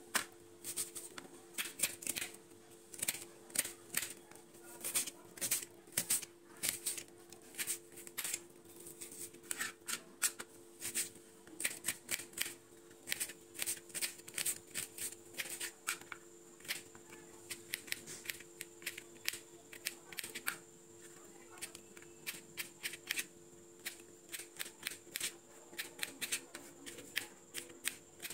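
Kitchen knife chopping a red onion on a plastic cutting board: quick, irregular taps of the blade against the board, several a second, over a steady low hum.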